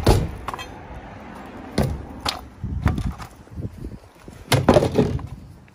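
A string of irregular wooden knocks and thwacks, loudest at the start and again about four and a half seconds in: rotten plywood core being broken out of a fiberglass boat transom.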